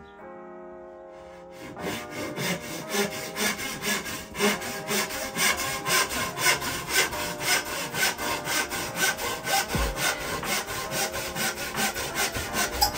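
Fine-toothed Bahco handsaw cutting through a bamboo pole, in quick, even strokes of about four a second. The sawing starts about a second and a half in.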